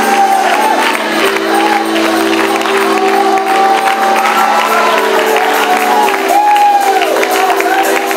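Live gospel worship music played loud: steady held chords under a long, wavering melody line, with a congregation clapping along.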